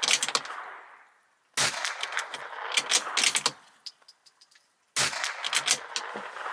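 Two .22LR rimfire shots from a bolt-action Bergara B14R firing Eley Biathlon ammunition, about three and a half seconds apart. These are quick fouling shots. Each shot is followed by a rapid run of metallic clicks as the bolt is worked to eject the case and chamber the next round.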